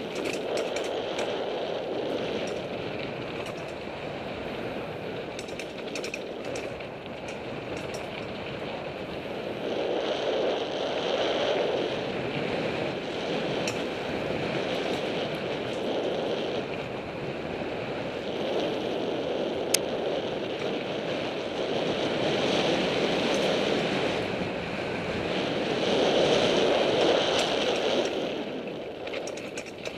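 Mountain bike riding fast on a dirt singletrack: wind rushing over the microphone mixed with tyre noise on the dirt, swelling and fading every few seconds, with scattered small clicks and rattles from the bike.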